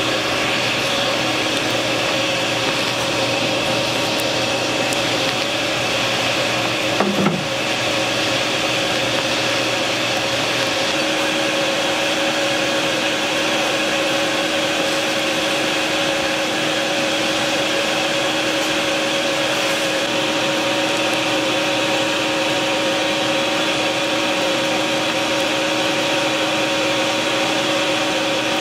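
Steady whirring drone of a blacksmith forge's air blower forcing air through the burning coal fire, with a brief knock about seven seconds in.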